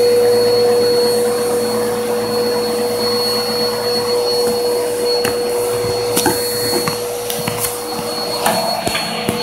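Vacuum cleaner running steadily through a hose and round brush attachment, a constant hum with a thin high whine over its rushing air. A few light knocks come in the second half.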